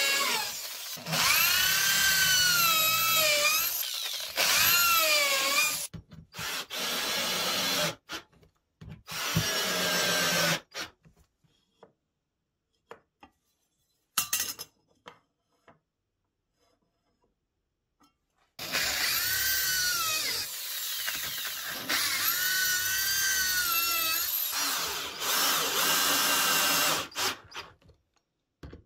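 Cordless drill boring into plywood in long runs, its motor pitch rising and falling as the trigger is squeezed and eased. Midway there are only short bursts, then near silence with a few clicks, before the drill runs again for several long stretches.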